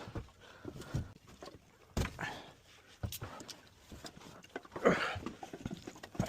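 Irregular knocks and thuds, with a longer rattling clatter about five seconds in and a sharp click near the end, as equipment is handled during work in a small enclosed space.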